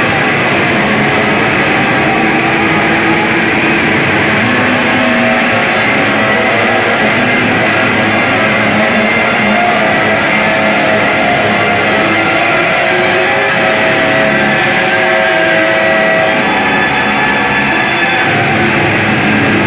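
Noise music: a loud, unbroken wall of distorted guitar and electronic drone, with faint held tones drifting in and out underneath.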